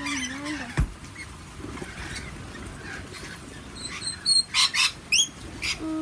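A flock of rainbow lorikeets screeching and chattering, with a burst of short, loud, shrill screeches in the last couple of seconds. A low thump about a second in.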